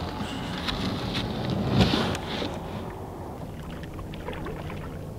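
Paddle strokes and water splashing around a small paddled boat, loudest about two seconds in, then settling to a lighter wash of water.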